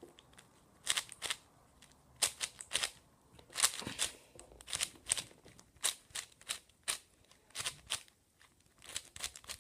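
MF5 5x5 plastic speedcube being turned by hand: irregular clicks and clacks of its layers, often two or three a second, with short pauses between turns.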